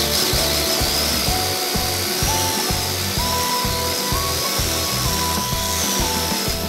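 Rotary hammer drill boring into a wall, a steady drilling noise, with background music playing over it.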